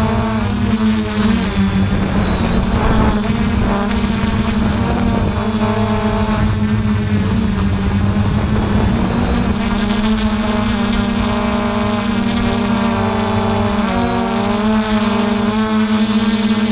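DJI F450 Flamewheel quadcopter's brushless motors and propellers whining steadily in flight, picked up by a camera mounted on the quadcopter. The pitch wavers briefly near the start and again about fourteen seconds in.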